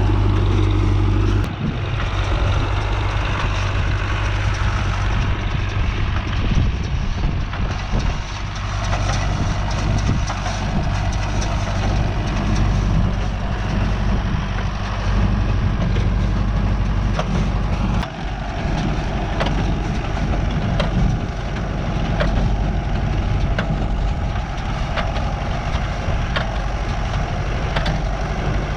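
Tractor engine running steadily while working a New Holland 68 hay baler, with light clicks and knocks from the baler over the engine drone.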